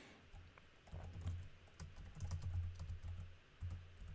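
Typing on a computer keyboard: a quick, irregular run of keystroke clicks and soft thuds as a line of code is entered.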